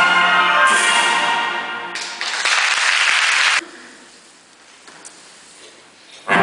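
Orchestra playing ballet music, which ends about two seconds in, followed by about a second of audience applause that cuts off abruptly. A quiet stretch of hall sound follows, and the orchestra starts again at the very end.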